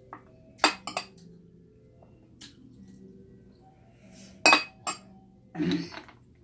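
A metal spoon clinking against a small ceramic bowl, two sharp clinks about a second in and two more later. Near the end comes a short clatter of cooked cockle shells being picked from a dish.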